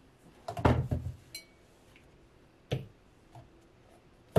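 Plastic bottles and tubes of hair products being picked up and set down on a wooden shelf: a cluster of knocks and rustles about half a second in, then single knocks near three seconds and at the end.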